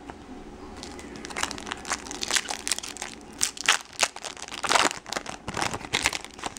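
Foil wrapper of a baseball card pack being pulled open and crumpled by hand: irregular crinkling crackles starting about a second in, loudest around five seconds in.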